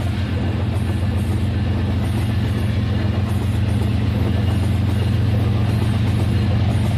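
Battery-powered toy train running on its track: a steady motor whir with a fast gear and wheel rattle.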